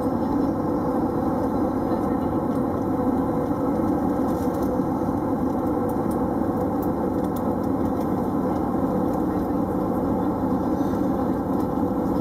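Steady cabin drone of an Airbus A320 in flight, its engines and the airflow heard from inside the passenger cabin as an even, unchanging rumble.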